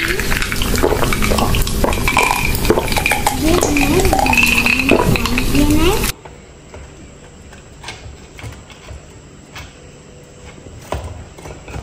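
Metal spoon scooping ice cubes into a drinking glass: a dense run of clinks and rattles of ice and spoon on glass, with a wavering, sliding pitched tone alongside. It cuts off abruptly about six seconds in, leaving only faint scattered taps.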